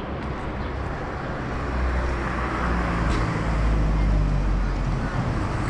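Street traffic: a motor vehicle's engine and tyres grow louder as it passes, about two to four seconds in, over a steady city street hum.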